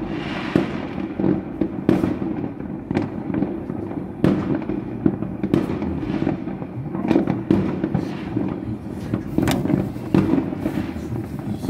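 Many fireworks going off at once: a steady din of overlapping distant bangs, with sharper, louder bangs and crackles every second or two.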